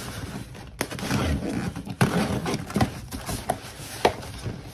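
A utility knife slicing through packing tape on a cardboard shipping box, then the cardboard flaps pulled open, with scraping and rustling and several sharp clicks and taps.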